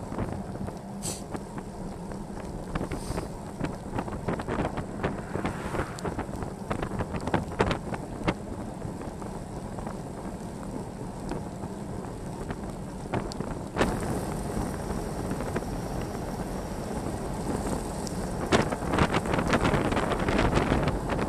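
Wind buffeting the microphone of a bike-mounted camera as the bike rides along, with road rumble and scattered clicks and knocks. About 14 seconds in, the noise steps up louder and hissier on a wet road, and it grows rougher with more clicks near the end.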